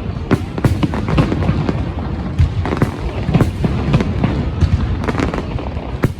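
Fireworks going off in a rapid string of bangs, several a second, with music playing alongside.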